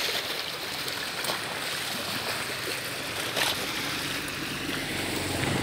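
Steady wash of lake water lapping and rippling at the shore, with a faint low hum underneath.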